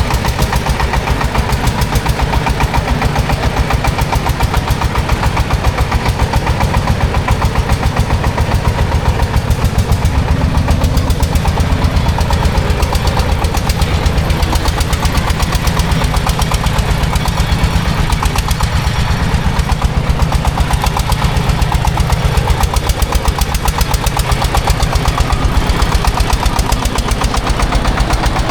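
Engine of a heavy earthmoving machine running steadily close up, with a fast, even knocking beat.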